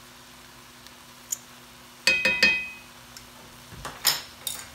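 Metal garlic press clinking: two sharp clinks with a brief ringing tone about two seconds in, then a few softer taps near the end, over a faint steady hum.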